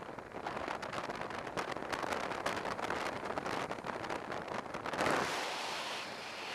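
Wind rushing and buffeting over the camera microphone on a motorcycle moving at road speed, with a louder gust about five seconds in.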